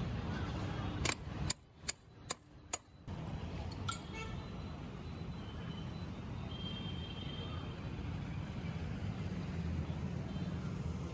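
Steady rumble of road vehicles, cut off briefly about a second and a half in by a gap with several sharp clicks, then running on steadily.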